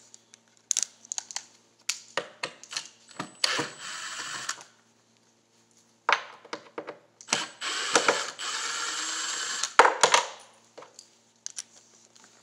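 Cordless drill-driver running twice in short steady bursts, backing out screws, amid sharp clicks and knocks of the bit, screws and hands on the box.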